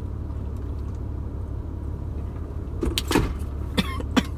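Steady low rumble of a parked car's idling engine heard from inside the cabin. About three seconds in come a few short, sharp mouth and drinking noises as a carbonated soda is sipped.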